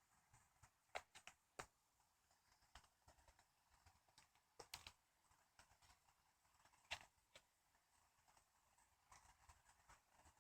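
Near silence broken by faint, irregular clicks and ticks, the loudest about seven seconds in.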